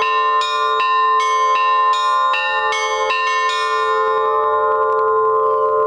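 Russian Orthodox church bells rung in a quick, even pattern of about two and a half strokes a second over lower bells that keep sounding. The striking stops about three and a half seconds in and the bells ring on.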